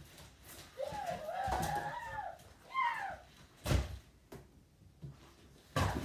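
A young child's high wordless vocalizing, a sing-song sound about a second in and a short falling squeal near the middle. Two thumps from the large cardboard box being handled, one in the middle and one near the end.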